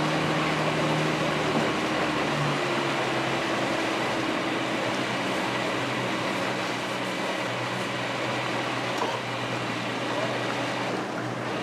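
Boat engine running steadily while under way, over a loud even rush of wind and water. The low engine tones shift slightly about two seconds in.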